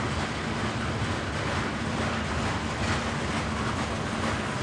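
Train running past: a steady rumble and rushing rail noise with a constant low hum through it.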